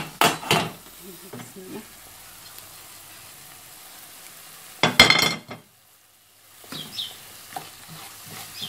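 Diced onion, squash and peppers sizzling in a stainless steel pan with olive oil and a little water. Loud clattering stirring noises come at the start and again about five seconds in.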